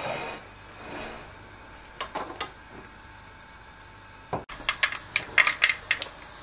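Mustard seeds and urad dal spluttering in hot oil in a clay pot: a few sharp pops at first, then, after an abrupt break about four seconds in, a dense, rapid crackle of pops. Popping like this is the sign that the oil is hot enough for the tempering.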